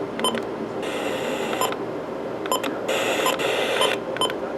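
FM radio receiver playing two buzzing data-like bursts, each about a second long and about a second apart, with short beeps before, between and after them, over a steady hiss.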